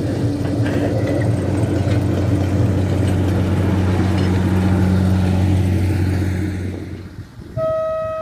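Hunslet narrow-gauge diesel locomotive's engine running steadily as it propels its train past. Near the end it cuts away, and a locomotive horn gives one short, steady blast.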